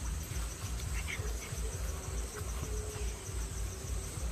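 Insects chirring steadily at a high pitch, over a low, uneven rumble.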